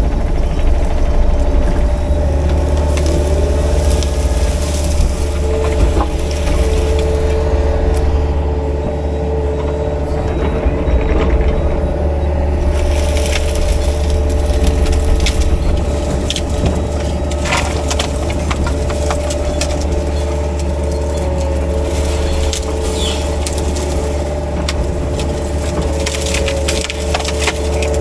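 Excavator engine running steadily with a constant whine, while the rake attachment tears through brush and small trees: repeated cracking and snapping of wood, thicker in the second half.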